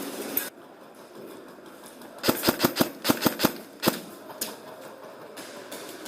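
Airsoft electric rifle (AEG) firing: two quick bursts of several sharp shots each, starting about two seconds in, then a single shot a moment later.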